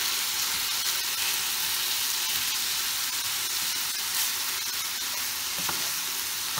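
Minced meat with chopped tomatoes and peppers sizzling steadily in a frying pan while it browns, stirred with a wooden spoon that makes faint scraping clicks against the pan.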